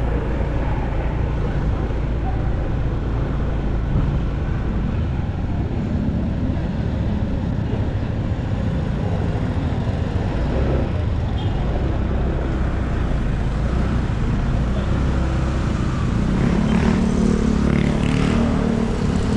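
Motorcycle engine running steadily while riding on a city street, with road traffic around it.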